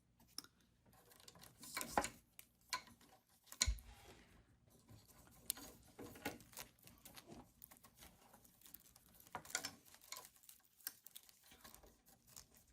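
Faint, irregular clicks, rustles and light taps of hands working cables and nylon zip ties. Louder knocks come about two and four seconds in.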